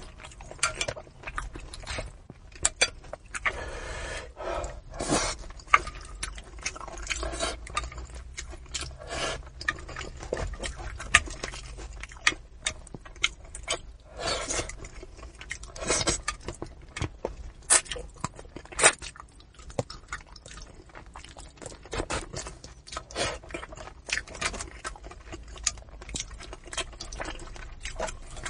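Close-up mouth sounds of a person eating braised fish: irregular wet chewing, lip smacks and sucking clicks.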